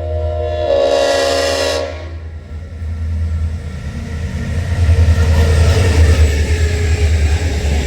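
Locomotive air horn sounding a steady multi-note chord that cuts off about two seconds in. The deep rumble of the diesel freight train then builds, loudest in the second half.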